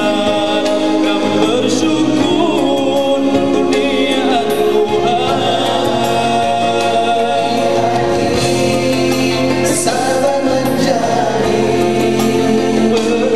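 Male vocal group singing a nasyid song in harmony through microphones, over a low bass line that holds each note and steps between them.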